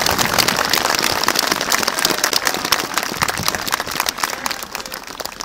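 Large crowd applauding, a dense steady clatter of many hands that thins out near the end.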